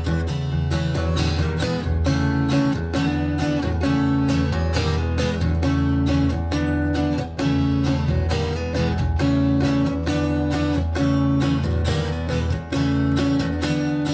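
Baritone guitar played through effects in an instrumental passage: a steady strummed rhythm over a sustained low bass, with a short riff repeating every second or so.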